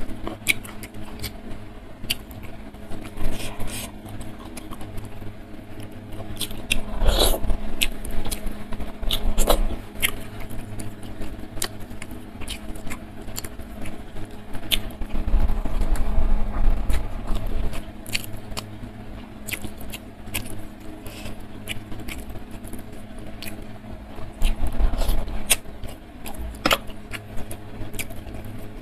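Close-miked eating sounds: chewing and wet mouth clicks, with fingers picking at rice and fish. Near the end a spoon scrapes in a clay bowl of broth.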